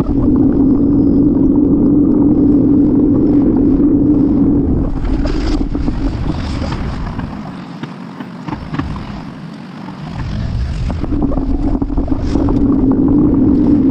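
Wind rushing over a bike-mounted camera's microphone while cycling, with a steady low drone; it eases for several seconds midway, then comes back.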